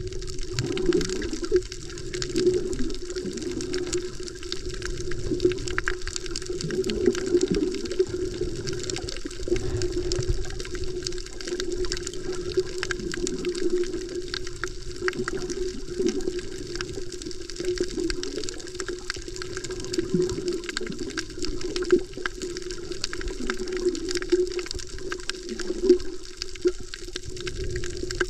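Underwater sound picked up by a submerged action camera while snorkeling: muffled rushing and sloshing of water, swelling and easing every couple of seconds, over a steady low hum.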